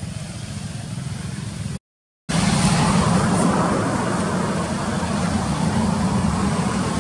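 Steady outdoor background noise with a low rumble, cutting out completely for about half a second some two seconds in and coming back louder.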